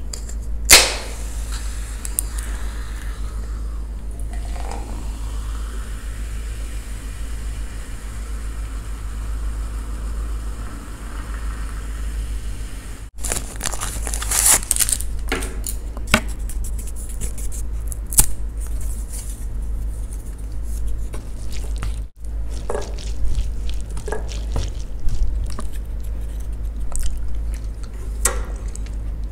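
An aluminium cola can's pull tab snaps open with a sharp click, then fizzy cola is poured into a glass, the pour rising steadily in pitch as the glass fills. After a break, a small packet crinkles and clicks in the hands.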